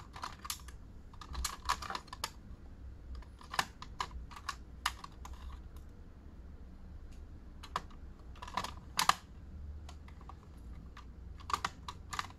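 Lipstick and makeup tubes clicking and clacking against a clear acrylic makeup organizer as they are lifted out and set back, in several short clusters of taps.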